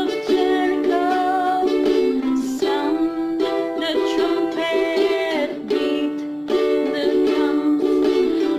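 Ukulele music playing continuously, with sustained melodic notes over it.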